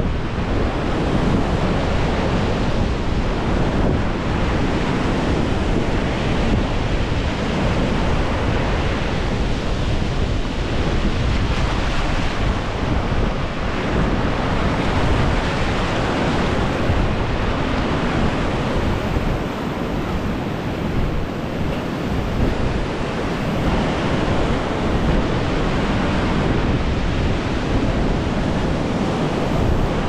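Sea surf washing onto a sandy beach in a continuous wash, with wind buffeting the microphone.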